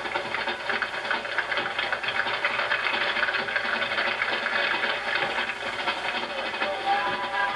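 Drum and bugle corps drum line playing a rapid snare-drum cadence, a dense fast rattle of strokes with no bugles sounding.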